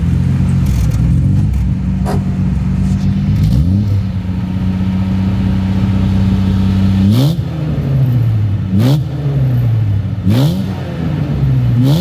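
A 1967 Jaguar E-Type 4.2's straight-six engine running through a new stainless-steel Tourist Trophy exhaust, heard at its twin tailpipes and echoing in an underground parking garage. It idles, is raised to a higher speed and held there about three and a half seconds in, then is blipped four times about a second and a half apart, each rev rising sharply and falling back.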